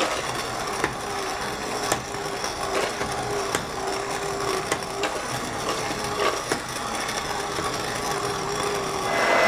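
Handheld immersion blender running in a stainless steel pot of hot tomato soup, pureeing it: a steady motor tone under a noisy churning of liquid, with scattered knocks and clicks.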